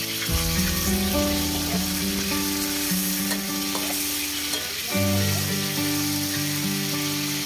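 Beef sizzling in hot oil in a steel wok, a steady frying hiss, while a metal spatula stirs and scrapes the pan. Background music with sustained notes plays underneath.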